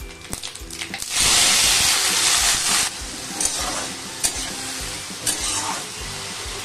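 Cut potato and bitter gourd go into hot oil in a metal kadai. A loud sizzle flares up about a second in and eases after a couple of seconds. The vegetables keep frying while a metal spatula stirs them, clicking against the pan a few times.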